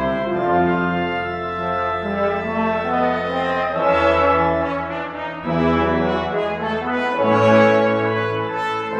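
Brass ensemble of trumpets and trombones with organ playing sustained chords. The chords change every second or so over a held bass note.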